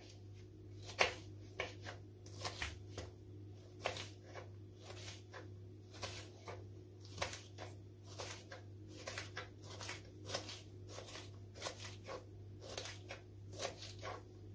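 Kitchen knife slicing a red kapya pepper into thin strips on a wooden cutting board: a run of uneven knocks as the blade goes through the pepper and meets the board, about two a second, over a steady low hum.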